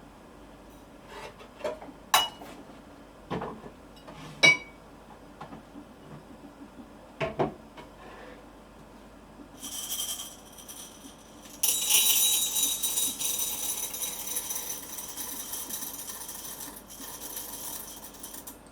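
Dishes and utensils clinking and knocking several times, then a loud steady hiss starts about twelve seconds in and slowly fades.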